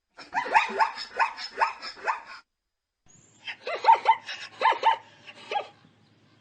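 Zebra barking call: two runs of quick, yelping barks, each run of about five or six calls, with a pause of about a second between the runs.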